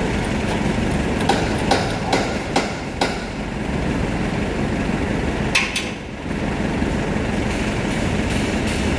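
Sharp knocks, five in quick succession in the first three seconds and one more about halfway, over a steady mechanical hum: tool strikes on metal in a car repair workshop.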